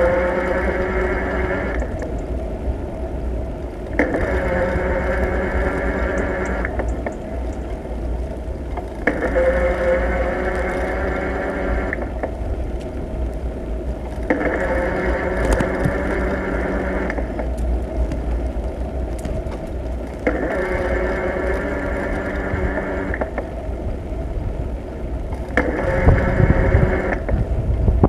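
Bicycle ride with steady low wind and road rumble on the camera. Over it a whine of several tones comes and goes: about three seconds on, then about two seconds off, five times over.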